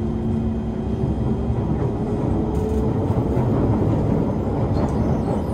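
Kawasaki Heavy Industries C151 metro train heard from inside the passenger car, running between stations. A steady rumble of wheels on track carries a faint motor whine that rises slightly in pitch over the first few seconds as the train gathers speed.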